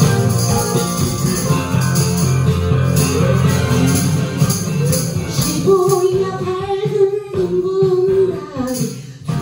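Karaoke backing track with a woman singing into a microphone and shaking a hand tambourine along with it. A little past halfway she holds one long sung note.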